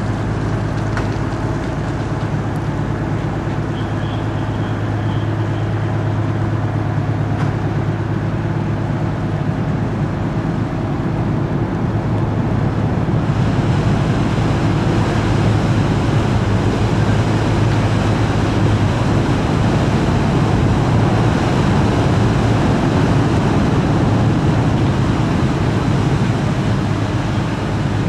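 A steady low engine hum under a rushing noise, which swells and brightens about halfway through.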